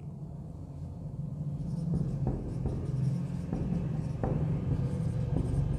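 Marker pen writing on a whiteboard: a run of short scratchy strokes and small taps, over a steady low hum.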